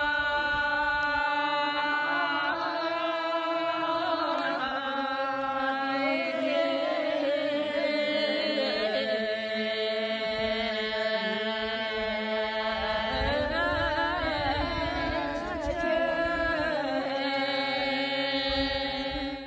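A group of men and women chanting in unison, drawing out long notes that shift slowly in pitch.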